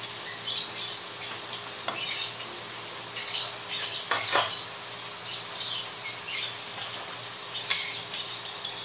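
Hot cooking oil crackling and sizzling from deep-frying tofu, a steady hiss dotted with small pops. A single light knock about four seconds in.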